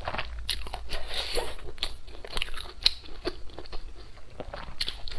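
Close-miked chewing of a mouthful of braised pork, with wet mouth noises and sharp clicks at irregular intervals.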